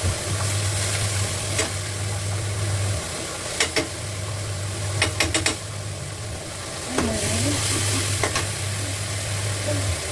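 A ridge gourd and round gourd sabzi sizzling as it fries in a pan, with a steady hiss. A spoon clicks sharply against the pan now and then as it is stirred, once in a quick run of four. A low hum underneath cuts out for a few seconds midway and comes back.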